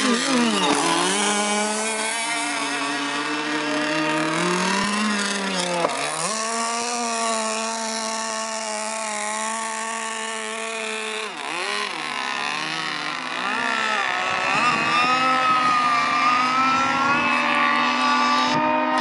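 Radio-controlled speedboat's motor running at speed, a steady high-pitched drone whose pitch dips and comes back up a few times as the throttle is worked, running fuller near the end.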